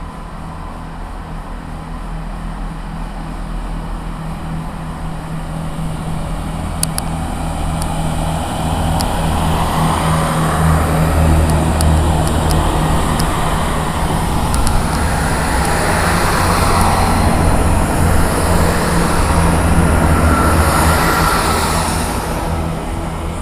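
A train moving through a station. A steady low drone runs under a wheel-and-rail rumble that builds, holds loud for about ten seconds and eases off near the end, with a run of sharp clicks in the middle.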